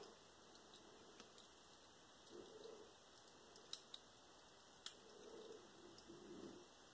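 Near silence, with a few faint clicks and soft squelches as thick acrylic pouring paint mixed with Floetrol is squeezed from a plastic squeeze bottle into a plastic cup.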